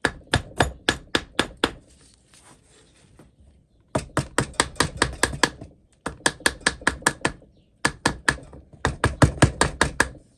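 Rapid hammer taps, about four or five a second in several runs with short pauses, driving a press-fit dust cap home into the body of a Wilton 9300 bench vise until it seats.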